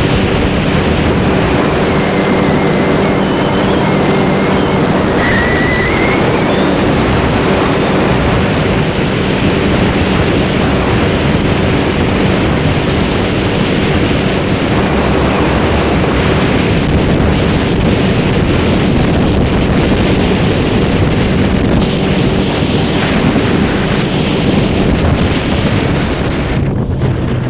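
Suzuki 9.9 outboard motor running steadily at high speed with the boat under way, mixed with heavy wind on the microphone and water noise. The engine note drops in pitch just before the end.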